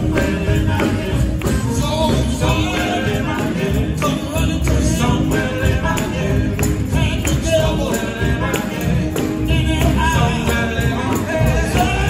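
Live gospel quartet music: a male lead voice and backing voices singing over electric guitar, with a steady beat from the band.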